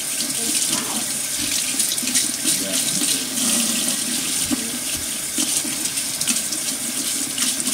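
Kitchen faucet running steadily into a sink, the stream splashing unevenly as a toddler's hands grab at it.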